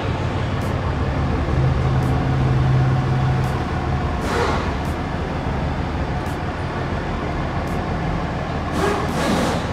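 Dodge Ram pickup's engine idling steadily, with two brief hisses about four and nine seconds in.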